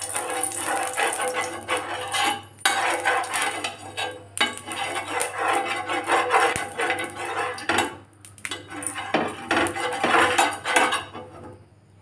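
Oil being spread over a flat dosa tawa, a utensil scraping and rubbing across the pan in repeated strokes, with short pauses between them.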